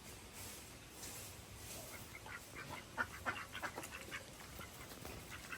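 Faint, distant domestic ducks calling: a quick run of short quacks about two to four and a half seconds in.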